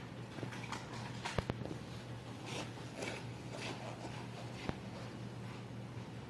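Steady low hum with a few soft sharp clicks and faint rustling.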